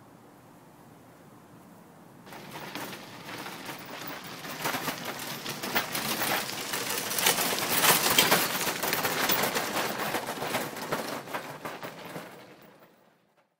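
Shopping cart being pushed over rough asphalt: its wheels and wire basket make a dense, rapid rattling clatter that starts about two seconds in, grows louder to a peak, then fades away.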